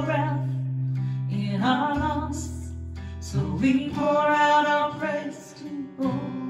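Worship song: voices singing held, sustained phrases over acoustic guitar, with low notes held underneath. One phrase ends and the next begins near the end.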